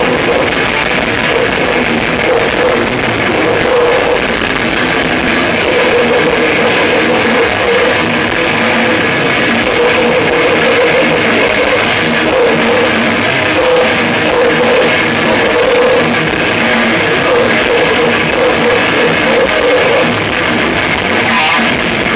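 Death metal band playing a song live with distorted guitars and drums, in a harsh, overloaded audience recording.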